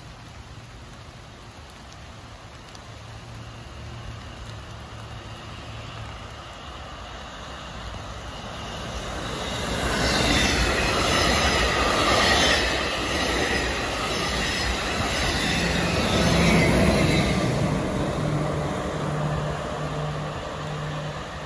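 NJ Transit multilevel commuter train, pushed by an ALP-45DP locomotive, passing at speed. The wheel and rail noise builds as it approaches, is loudest for about eight seconds as the cars go by, then fades as it draws away.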